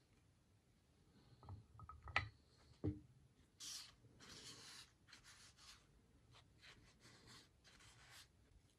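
A few light clicks and knocks of metal parts being handled, then a tissue wiping across a painted cast brake caliper bracket in a series of short rubbing strokes.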